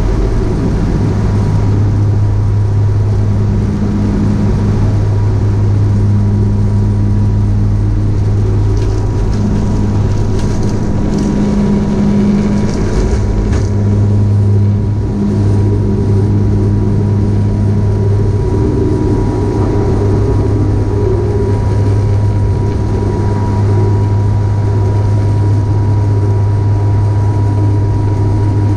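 Cabin noise of a Bombardier Q400 at takeoff power, its Pratt & Whitney PW150A turboprops and six-blade propellers making a loud, steady deep drone with a thin constant whine above it, through the takeoff roll and lift-off into the climb.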